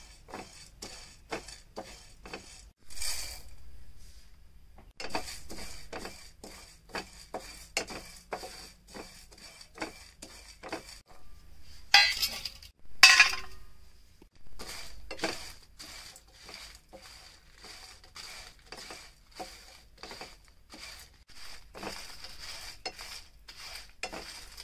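Spatula stirring and scraping dry-roasting lentils and spices in a non-stick pan, in even strokes about twice a second. Two louder rattles come about halfway through.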